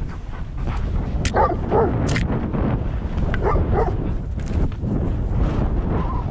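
Dogs barking and yipping in short pairs about one and a half and three and a half seconds in, over a steady low rumble of wind and skis moving through snow.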